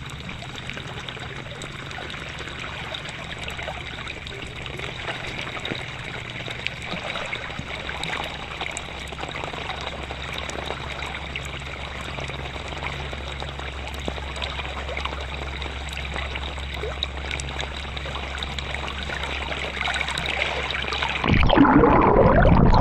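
Canal water flowing and trickling, with scattered raindrop ticks. Near the end it turns suddenly louder and churning.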